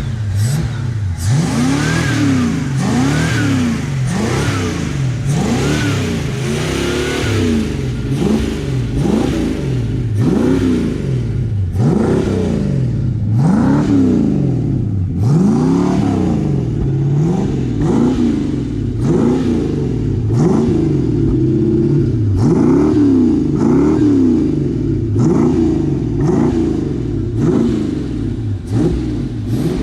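Old carbureted pickup truck engine being revved loud in quick repeated blips, its pitch rising and falling about once a second.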